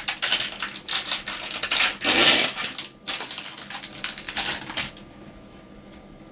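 A card booster pack's wrapper crinkling and being torn open, with the cards inside handled. The crackling is loudest a little after two seconds in and stops about five seconds in.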